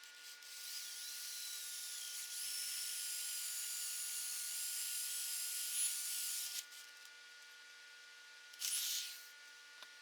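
A small handheld power tool running with a high, wavering whine for about six seconds, then a brief second run near the end.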